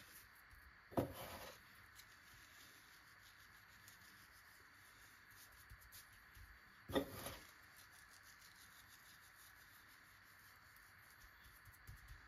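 Hand rubbing coarse salt into a raw pork tenderloin on a wooden cutting board, faint, with two brief louder scuffs about a second in and about seven seconds in.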